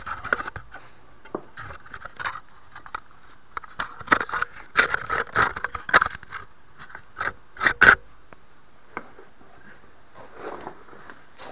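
Irregular bursts of scraping and rustling, with a busy stretch about four to six seconds in and the loudest scrape just before eight seconds.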